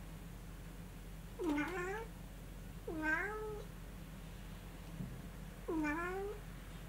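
Munchkin cat meowing three times, short calls a second or two apart, each dipping then rising in pitch.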